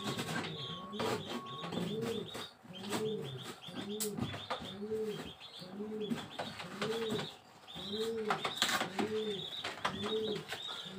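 Pigeons cooing in a steady run of low, rising-and-falling coos, about one and a half to two a second, with a short break about seven and a half seconds in. A smaller bird chirps quickly and high above them, and a few sharp clicks come through.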